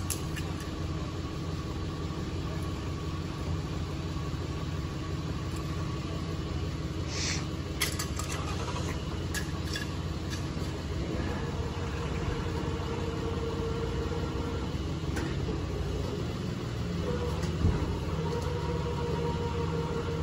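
Steady low rumble of idling vehicle engines, with a few brief clicks about a third of the way in and a single knock near the end.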